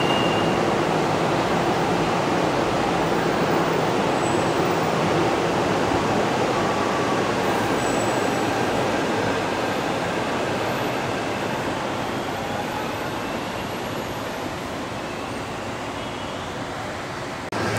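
Monorail train pulling out of the station. Its running noise is steady at first and fades gradually as it draws away.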